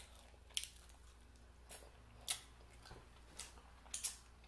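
Close-miked chewing and wet mouth smacks: short, sharp clicks that come irregularly, about seven over four seconds.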